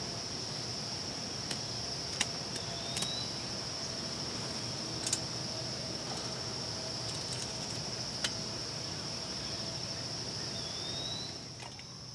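Steady high-pitched drone of insects, with a handful of sharp clicks and snaps from a small wood fire burning in a folding metal firebox stove. A brief rising chirp is heard twice.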